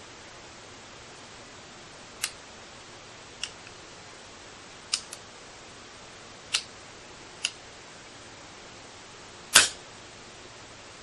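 A PCP air rifle firing: six sharp cracks at irregular spacing over a steady hiss, the loudest coming near the end.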